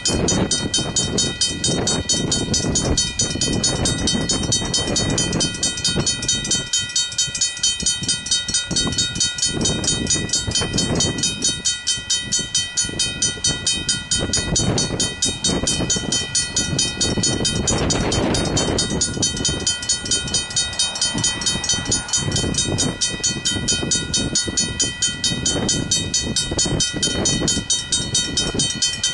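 Griswold mechanical level-crossing bells ringing continuously with fast, even hammer strikes on steady bell tones. The crossing has been activated for an approaching train.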